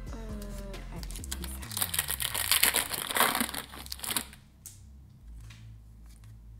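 Foil wrapper of a Pokémon TCG booster pack crinkling loudly as it is torn open, starting about two seconds in and lasting about two seconds.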